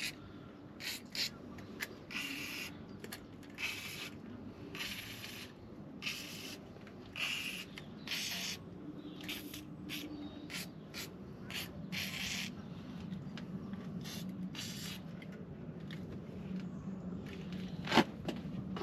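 Aerosol penetrating oil sprayed in about a dozen short hissing bursts onto rusted, seized bolts. A single sharp click comes near the end.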